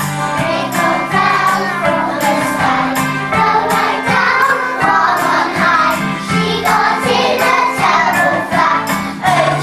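A group of young children singing together over recorded backing music with a steady beat.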